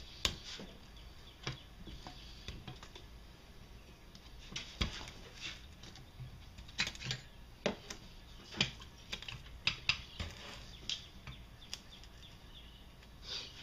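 Scattered light metallic clicks and taps, irregular and a few per second, as small parts and tools are handled on the case of a partly disassembled Can-Am ATV engine.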